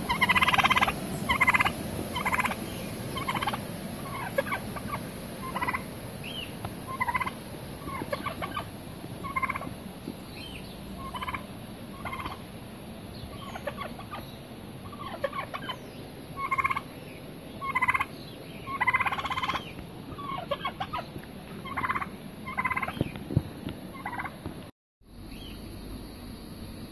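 Domestic turkey tom gobbling again and again, a string of short gobbles roughly once a second. The sound cuts out briefly near the end.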